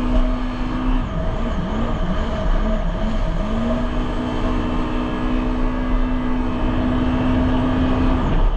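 Jet ski engine running at speed with a steady pitch that wavers up and down for a couple of seconds about a second in, then holds steady again, with wind rumbling on the microphone.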